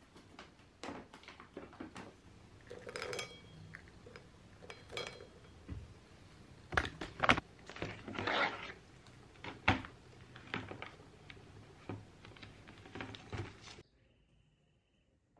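Scattered knocks, clicks and rustles of things being handled, with a few sharper knocks about 7 and 10 seconds in; the sound drops off sharply about 14 seconds in.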